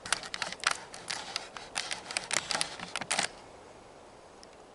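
A quick run of sharp clicks and light knocks for about three seconds, then they stop: parts of a washing machine's control panel being handled and pried apart.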